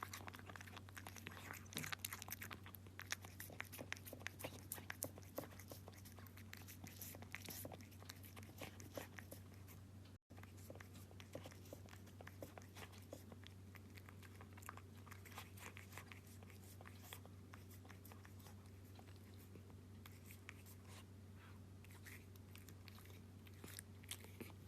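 A cat chewing and crunching food in quick, irregular bites. The crunches are densest in the first ten seconds, and after a brief break they go on more faintly.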